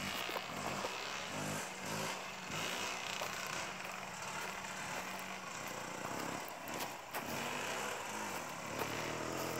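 Two-stroke dirt bike engine revving up and down, its pitch rising and falling as the throttle is worked.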